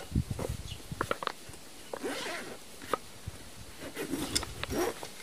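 The zipper of a round, padded cookware carry case being pulled open in short runs, about two seconds in and again near the end, with small knocks and rustling of the fabric case as it is handled.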